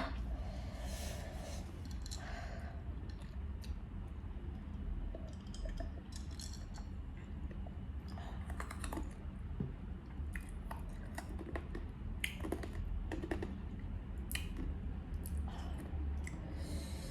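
Eating sounds at close range: chewing with many small irregular clicks and crackles, over a low steady hum.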